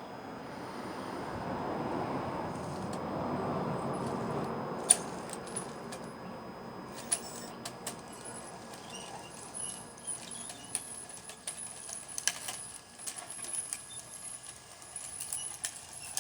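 Scale RC construction models at work: a rushing pour of loose material that swells and fades over a few seconds, then scattered sharp clicks and rattles over a thin high electric whine.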